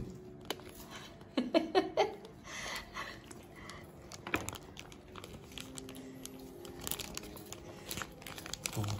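Paper burger wrapper crinkling and rustling as hands unfold and peel it back from the burger, in scattered crackles. A brief bit of voice sounds about one and a half seconds in.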